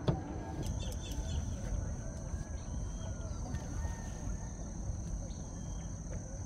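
Insects trilling steadily on one high tone that sets in shortly after the start, with a few faint bird chirps over a low rumble. A single sharp knock right at the start.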